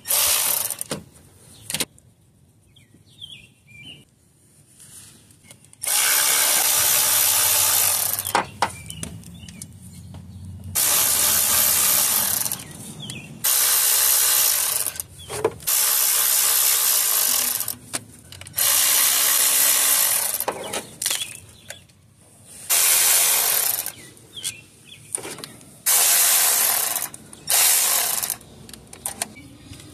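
Power tool running in about eight bursts of one to two and a half seconds each, with short pauses and a few clicks between them, as it spins out the timing-chain cover bolts one after another.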